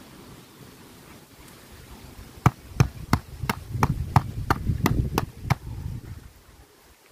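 Gloved hand knocking the base of an upturned black plastic plant pot, about ten sharp taps at roughly three a second, starting a couple of seconds in, over a low rumble.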